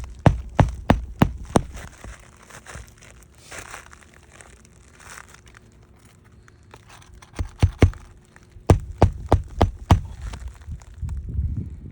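Roofing nails being driven into an asphalt shingle: a run of about five sharp strikes at the start and another of about seven from about seven and a half seconds in. Between the runs the shingle rustles as it is handled.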